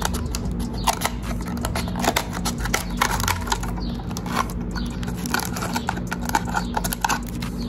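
Scissors snipping through a thin plastic water bottle: a run of irregular snips with the plastic crinkling and crackling in the hands, over a steady low hum.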